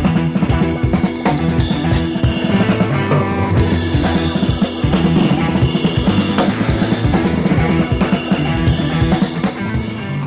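Background rock music with drum kit and guitar, fading down near the end.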